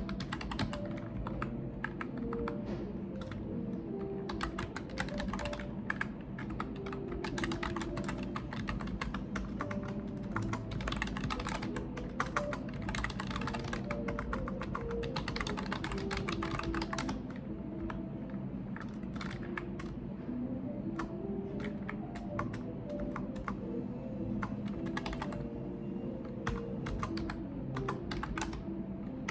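Computer keyboard being typed on in fast runs of keystrokes. The typing is densest through the first half, then thins to shorter bursts with brief pauses.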